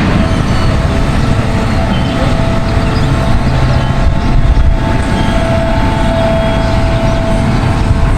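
Steady engine rumble with a faint high whine held over it.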